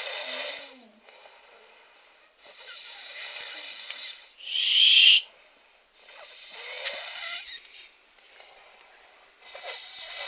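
A person snoring heavily, a loud noisy snore about every three and a half seconds, one of them followed by a short, loud, high whistle about four and a half seconds in.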